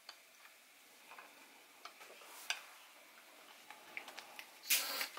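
Faint, scattered small clicks and metal taps as the homemade copper steam engine and its lit spirit burner are handled and set in place on the base. A short rustling burst comes near the end.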